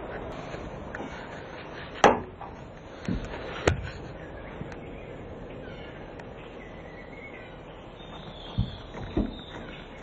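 A handful of sharp, short knocks over a steady background hiss: the loudest about two seconds in, two more within the next two seconds, and two near the end.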